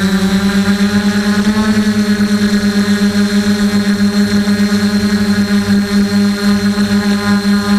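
DJI F450 quadcopter's brushless motors and propellers humming steadily in flight, heard close up from a camera mounted on the frame, with a fast wavering pulse. The pitch lifts slightly about a second and a half in, then settles.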